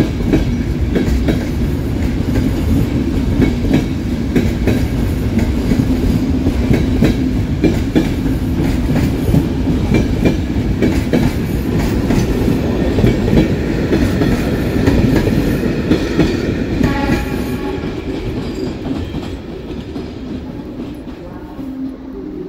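A train moving through a large station: a heavy rumble with the wheels clattering over rail joints and points, with a brief higher tone about three-quarters through. The sound fades over the last few seconds as the train draws away.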